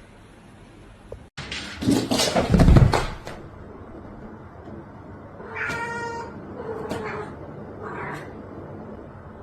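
A cat meowing: one long meow about six seconds in, then two shorter calls. Before it, about two seconds in, comes a loud burst of noise.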